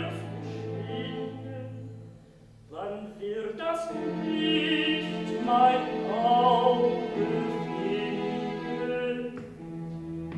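Operatic singing with a wavering vibrato over sustained instrumental accompaniment. After a short lull about two seconds in, a voice comes in about three seconds in.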